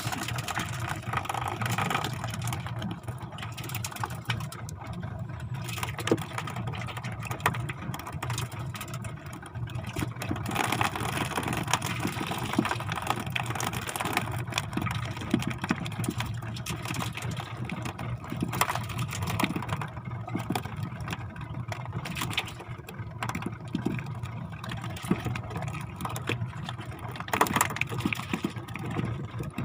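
Small fishing boat's engine running steadily while trolling, with water rushing along the hull and scattered knocks.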